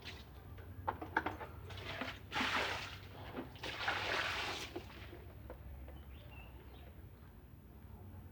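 Water running or splashing in two short bursts, each about a second long, after a few light clicks and knocks.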